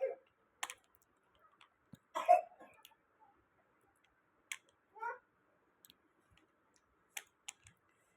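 Scattered clicks and light knocks of tools and metal parts being handled in AC compressor repair work, with one louder burst about two seconds in.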